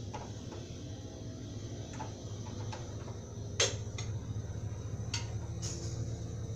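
Paratha dough starting to cook in a hot, dry non-stick frying pan: a low steady hum with a few scattered sharp ticks from the hot pan, the loudest about three and a half seconds in.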